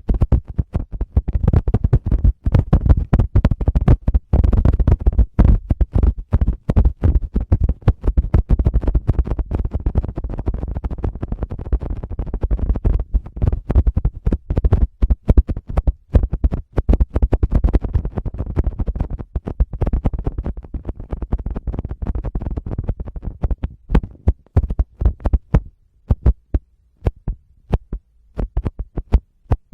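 Fingers rapidly tapping and rubbing on a Tascam microphone, a dense run of quick taps with a deep, boomy low end, thinning out to sparser taps in the last few seconds.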